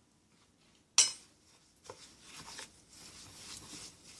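A spoon strikes a small bowl once with a sharp clink about a second in, then scrapes and stirs through the oily za'atar spice mixture in the bowl.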